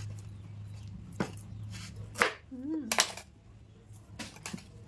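Kitchen knife cutting through fresh cassava roots onto a wooden cutting board: about five sharp, separate knocks of the blade and the roots on the board.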